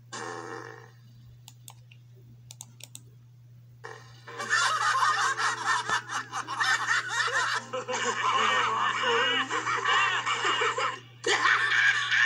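Cartoon characters laughing hard, played through a laptop's speakers, starting about four and a half seconds in; after a short break near the end, a cartoon hyena's cackling laugh follows. A few faint clicks come before the laughter, over a steady low hum.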